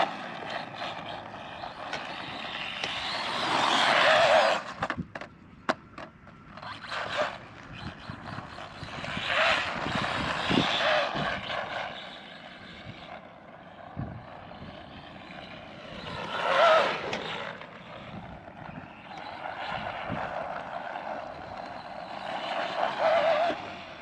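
Arrma Mojave Grom BLX, a mini brushless-electric RC truck, driven in bursts of throttle over dirt and grass. Motor and drivetrain whine and tyres scrabble, rising and falling with each run, with a few sharp knocks from bumps and landings.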